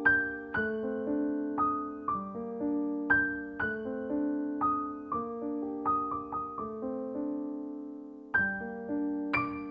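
Background music: a slow, gentle piano melody of struck notes left to ring. Near the end one note fades out for over a second before a new chord comes in.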